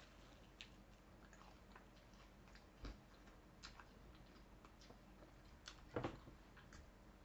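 Faint chewing and biting while eating crunchy fried chicken, with scattered small clicks, a soft thud about three seconds in and a brief crunch about six seconds in.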